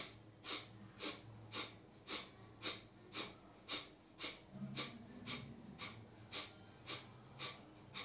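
Kapalabhati breathing: short, forceful exhalations pushed out through the nose in an even rhythm of about two a second.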